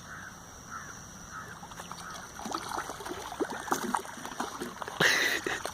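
Water splashing and sloshing as hands work in shallow water, with a louder splash about five seconds in. Faint repeated animal calls sound in the first couple of seconds.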